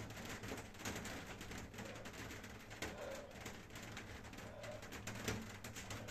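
Bare feet landing again and again on an exercise mat during a set of jumping lunges, with a couple of short soft hums in between.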